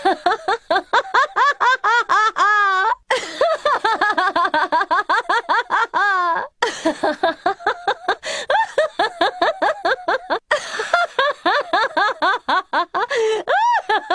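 Rapid, high-pitched laughter, a quick string of 'ha's at about six a second, in four long runs with short breaks between them.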